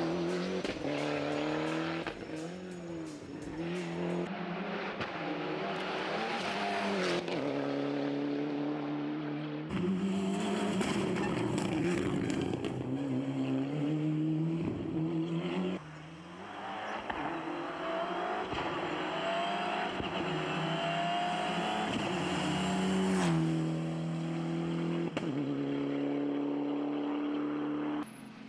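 Ford Escort RS Cosworth rally car at full speed on a tarmac stage: the engine revs hard, its pitch climbing and dropping again and again through gear changes and braking for corners. The sound jumps several times as one pass cuts to the next.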